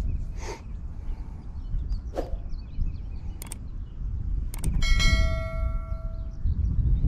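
Subscribe-button animation sound effect: two sharp clicks, then a bell ding that rings on for about a second and a half. Under it runs a steady low wind rumble on the microphone.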